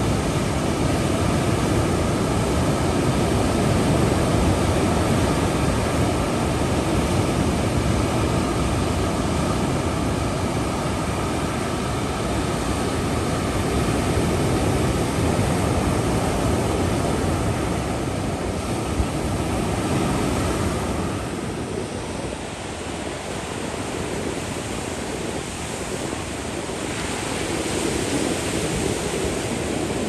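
Ocean surf breaking and washing onto a sandy beach: a steady rushing of waves that eases a little about two-thirds of the way through, then builds again near the end.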